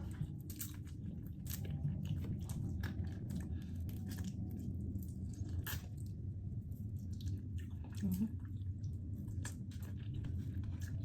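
A person chewing and biting food close to the microphone, with scattered sharp crunches and smacks, over a steady low hum.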